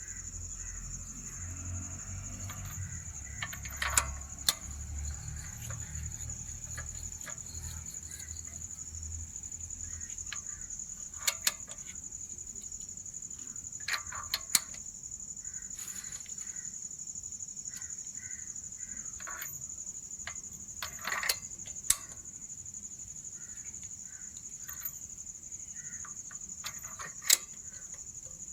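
Scattered sharp clicks and knocks of hand tools on metal while a spark plug is being changed, some in quick pairs, over a steady high-pitched chirring of crickets.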